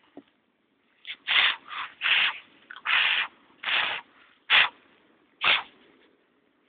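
Dogs giving harsh, breathy huffs and snarls, about eight short bursts in quick succession starting about a second in.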